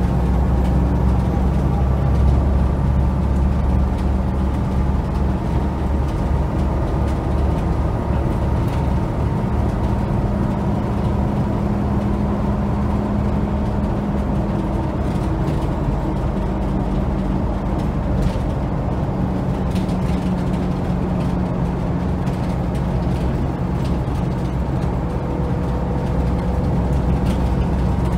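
Volvo B7TL double-decker bus's D7C six-cylinder diesel engine and drivetrain running steadily while the bus is under way, with road noise, heard from inside the lower deck.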